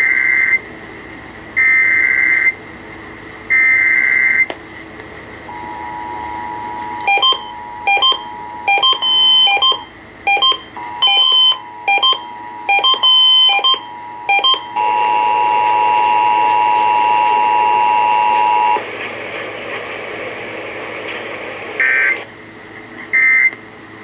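Emergency Alert System monthly test tones on a radio broadcast: three rasping digital data bursts of the header, then the two-tone attention signal, choppy and broken up for several seconds before holding steady for about four. After a few seconds without tones, two short end-of-message data bursts sound near the end.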